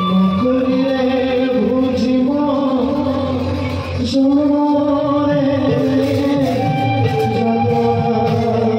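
Bhaona theatre song: singing in long held notes over instrumental accompaniment.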